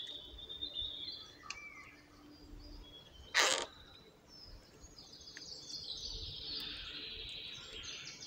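Woodland birds singing and chirping, with one brief rustle-like noise about three and a half seconds in, the loudest sound.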